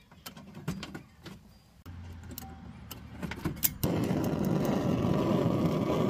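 Light clicks and taps of crimp connectors being handled on an RV fridge's thermal switch. About four seconds in, a steady rushing noise with a faint high tone starts abruptly and becomes the loudest sound.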